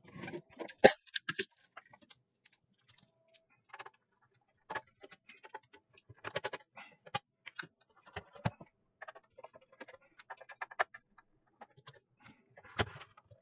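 Scattered clicks, taps and light metal knocks as screws are taken out of an old car battery charger's metal case and its cover is worked loose and lifted off, with a sharper knock about a second in.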